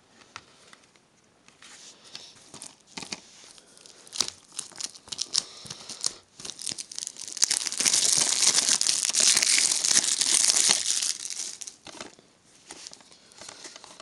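Plastic wrapping being torn and peeled off a new DVD case: scattered crinkles and crackles, with a louder stretch of continuous tearing and crinkling lasting about three seconds past the middle.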